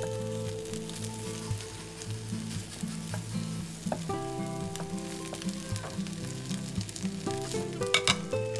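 Egg and vegetable frittata sizzling steadily in a frying pan on the stove, with a few sharp clicks near the end as a plate is set down over the pan.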